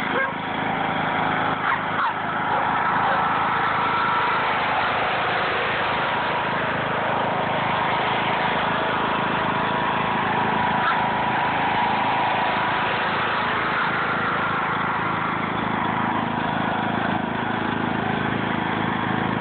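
Riding lawn mower's engine running steadily as it drives across the lawn.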